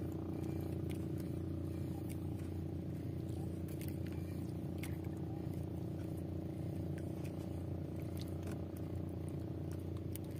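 A small engine running steadily with an even, unchanging drone, with a few faint clicks and scrapes on top.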